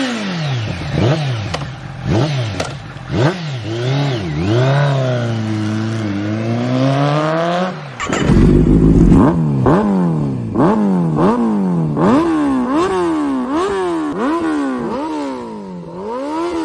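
Kawasaki Ninja ZX-10R inline-four with an aftermarket full-system exhaust being revved while standing: a few sharp throttle blips, then a longer rev held with the pitch wavering. About halfway through the sound cuts abruptly to a second recording of quick, regular blips, about one every half second or so.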